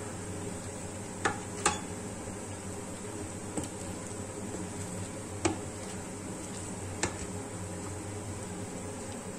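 Wooden spatula stirring cooked rice and water in a rice cooker's inner pot, knocking sharply against the pot five times, over a steady low hum.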